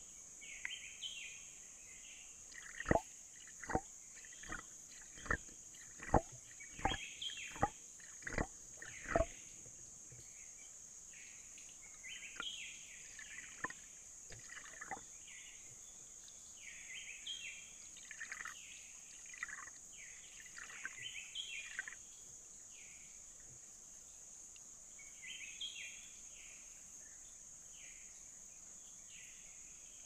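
Forest stream ambience: a steady high insect drone with scattered bird calls. About three seconds in, a run of about nine sharp notes, each sweeping quickly downward, repeats roughly once a second for six seconds and is the loudest thing here.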